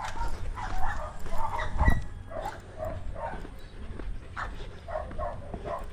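Dogs barking and yipping in a run of short, quick barks.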